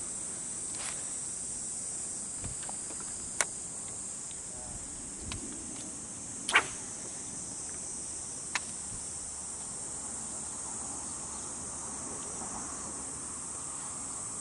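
Insects droning steadily in a high-pitched hiss, with a few sharp clicks, the loudest about six and a half seconds in.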